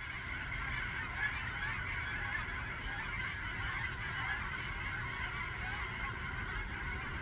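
A flock of birds calling continuously, many voices overlapping into a steady din, with a low rumble underneath.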